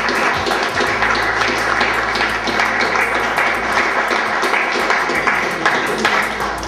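Audience applauding, a steady dense patter of many hands clapping that begins to fade near the end.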